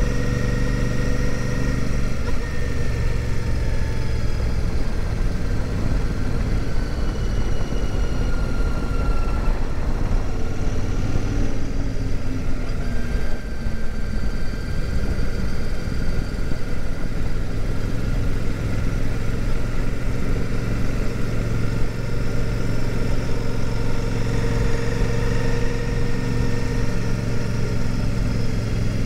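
Royal Enfield Super Meteor 650's parallel-twin engine running at a steady cruise, heard from the rider's seat with wind rush over the microphone.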